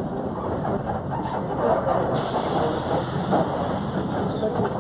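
Volkswagen 17.230 OD bus running under way, its differential roaring loud over steady drivetrain and road noise.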